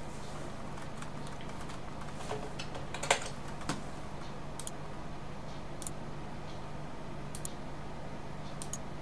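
A few scattered computer keyboard clicks, the loudest about three seconds in, over a steady low hum.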